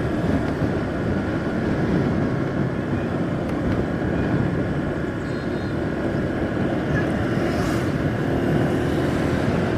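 Steady running noise from a vehicle travelling along a paved highway: an even engine and road rush with no breaks. A faint steady engine tone comes up in the last couple of seconds.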